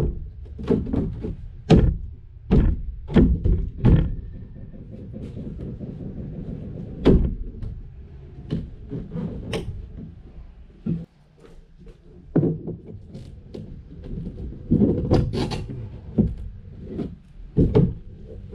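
A fiberglass transom section knocking and scraping against the boat's hull as it is pushed and worked into place. The knocks come as irregular thunks, in a cluster near the start and again near the end, over a steady low rumble.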